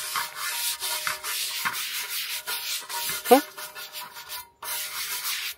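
A stiff dish brush scrubbing a large soapy, two-handled round metal pan in quick, rasping back-and-forth strokes, with a short pause a little after four seconds in. About three seconds in, one brief rising tone stands out above the scrubbing.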